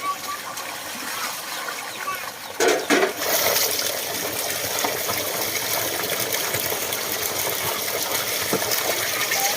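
Running water splashing as hands and feet are washed, with two louder splashes about three seconds in, after which the water runs stronger and steady.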